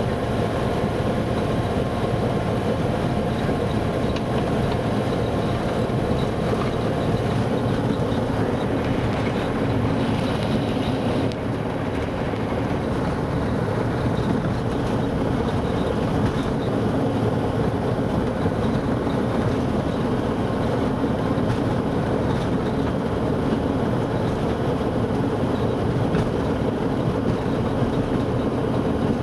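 Ultralight aircraft's propeller engine running steadily at taxi power, heard from inside the cockpit while it taxis on the runway.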